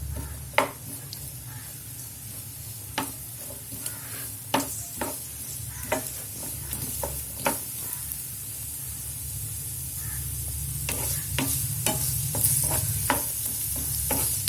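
Chopped onions sizzling in hot oil in a pan as they are sautéed, stirred with a spoon that clicks and scrapes against the pan every second or so. The sizzle grows louder in the second half.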